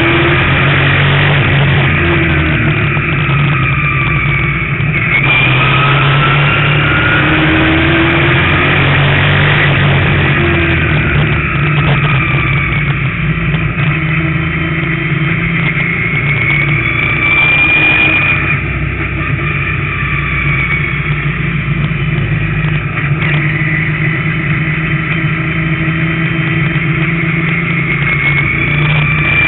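Street stock race car's engine running hard, recorded onboard, its pitch repeatedly climbing and falling as it laps. The engine briefly eases about eighteen seconds in.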